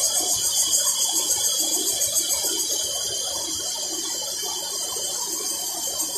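Chorus of cicadas calling in the trees: a loud, steady, high-pitched buzz with a fast pulsing.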